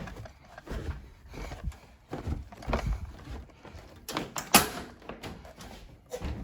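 A string of irregular knocks and clunks, the loudest about four and a half seconds in.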